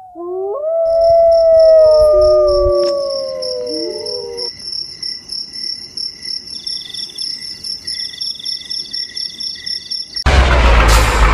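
Several dogs howling in long, overlapping howls that glide in pitch over the first few seconds, over crickets chirping in steady pulses. About ten seconds in, a loud vehicle engine cuts in abruptly.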